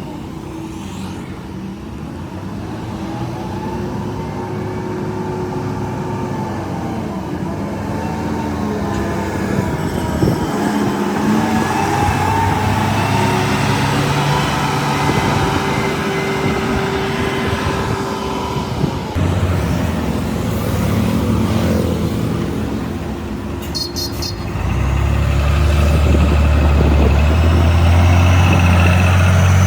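Engine of a heavy construction vehicle running, its pitch rising and falling, then growing louder and deeper about 25 seconds in as it works harder.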